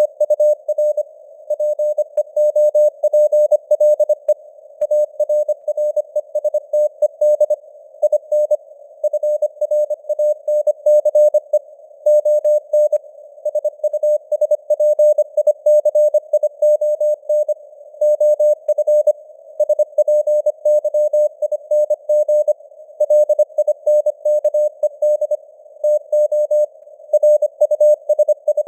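Morse code (CW) sent at 25 words per minute: a single steady tone keyed on and off in quick dots and dashes with gaps between letters and words, spelling out news headlines. A narrow hiss of simulated radio noise sits under the tone, and the signal strength fades up and down as in QSB.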